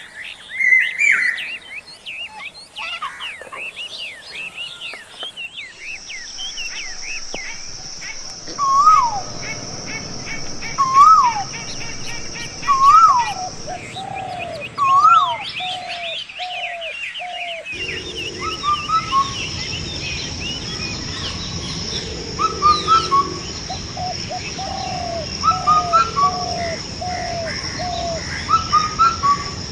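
Morning chorus of many birds chirping and twittering, with one louder bird repeating a rising-and-falling call about every two seconds, then runs of shorter, lower notes. A steady high-pitched whine sounds under the birds through much of it, cutting out and back in.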